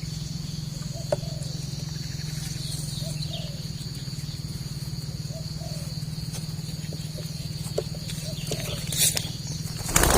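Soft, arching coos of spotted doves repeat every second or so over a steady low hum and a thin, high insect-like buzz. A loud rustling burst comes near the end.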